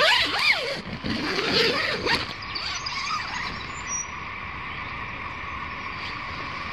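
Tent door zipper being pulled open, a loud rasping burst in the first two seconds. After it, a steady outdoor background of faint insect and bird calls.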